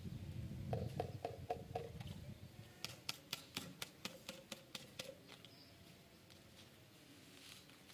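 Irregular light clicks and taps of hard objects being handled, coming thickly about three to five seconds in and thinning out afterwards, over a low rumble of movement in the first couple of seconds.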